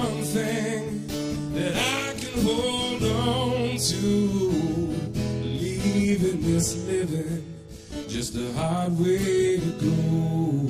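Background music: an acoustic guitar strummed and picked.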